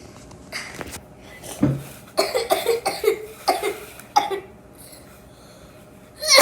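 A child's cough: a string of quick, hacking coughs lasting about two seconds, from about two seconds in, and another loud burst near the end.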